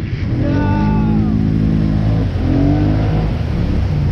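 ATV engine running and revving up and easing off twice.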